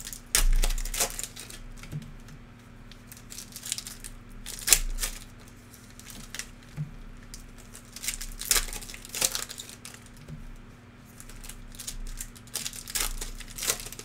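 Plastic wrapping on trading-card packaging crinkling and crackling as it is handled and opened, in irregular bursts, the loudest about half a second in and again near the middle and end.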